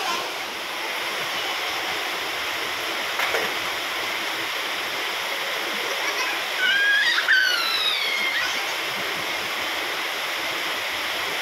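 Steady rain falling on an open tiled rooftop terrace. About two-thirds of the way through, a brief high, gliding call rises over it.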